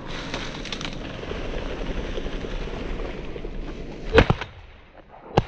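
Rustling of legs pushing through tall dry grass, then two shotgun shots about a second apart at flushing pheasants, the first the loudest.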